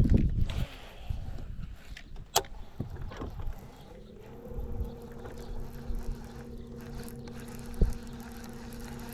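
Electric trolling motor on a bass boat, starting up about four seconds in and humming steadily at one pitch. Before that comes a low rumble at the start and a couple of sharp ticks.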